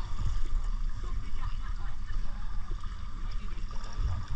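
Water lapping and trickling around a kayak, with small splashes and drips over a steady low rumble.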